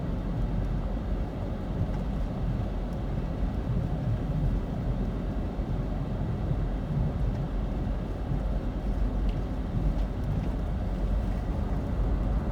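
Small front-wheel-drive car driving at a steady pace, heard from inside the cabin: a steady low rumble of engine and tyre noise.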